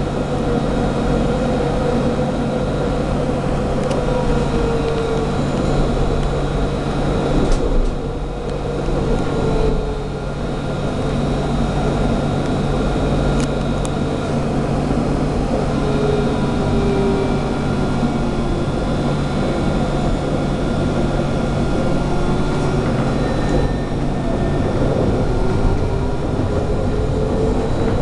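Alstom Citadis tram running, heard inside the passenger saloon: a steady low rumble and hum, with the traction motors' whine rising and falling as the tram changes speed.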